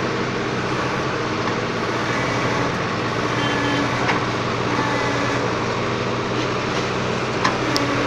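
Tractor-mounted backhoe loader's diesel engine running steadily under load while the backhoe digs, with a couple of sharp knocks, one about four seconds in and one near the end.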